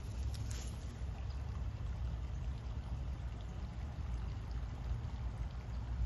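Low, steady rumble of wind buffeting the microphone, with a few faint clicks just after the start.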